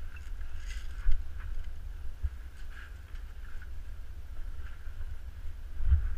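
Low, muffled rumble of wind and body movement on a GoPro sealed in its underwater housing, which deadens outside sound, with a few dull knocks of the camera being jostled, the loudest near the end.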